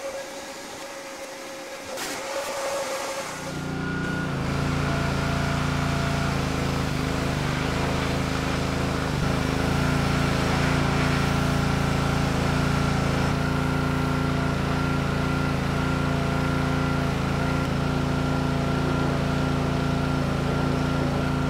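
Pressure washer running steadily, a constant motor-pump hum under the hiss of the spray, coming up to full after about three or four seconds.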